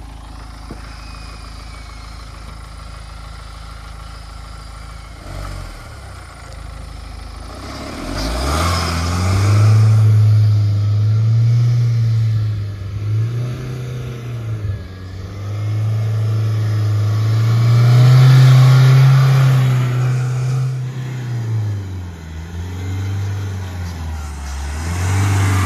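Mahindra Thar's mHawk diesel engine idling steadily, then about eight seconds in it begins revving as the 4x4 pulls through loose sand, its note rising and falling several times.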